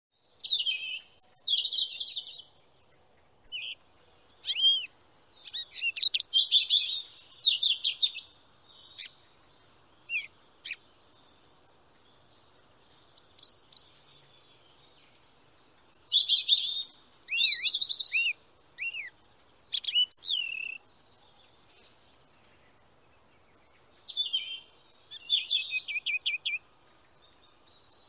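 Songbirds chirping and singing in bouts of quick, high, sliding notes, with short pauses between bouts.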